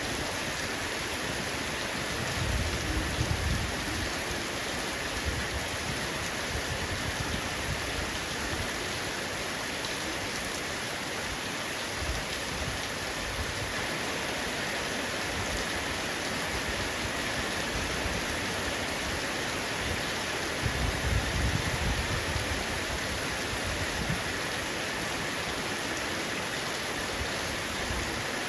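Heavy rain falling steadily on a roof, an even hiss of drops. Two brief low rumbles rise under it, about two seconds in and again about two-thirds of the way through.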